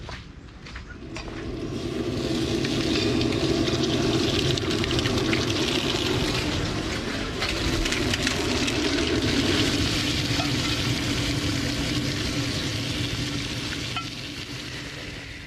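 Bacon sizzling and frying in a skillet, swelling in over the first couple of seconds and fading near the end.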